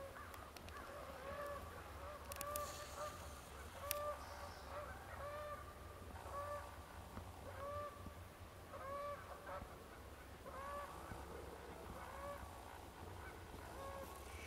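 A bird's short call, each rising and falling in pitch, repeated over and over about once a second, faint.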